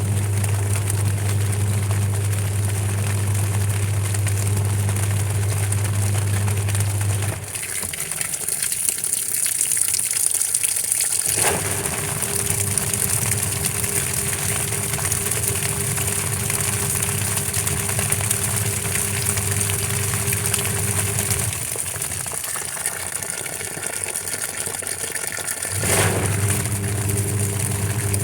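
Washing machine running, a steady electric motor hum with a high hiss. It drops and changes abruptly several times.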